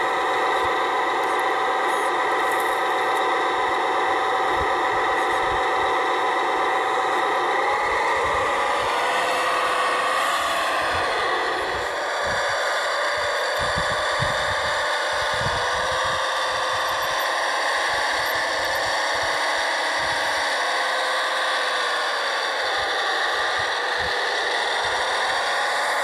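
Electric motors and gearboxes of radio-controlled scale construction machines whining steadily, the pitch dipping and rising a couple of times as the machines change speed, with scattered low thuds underneath.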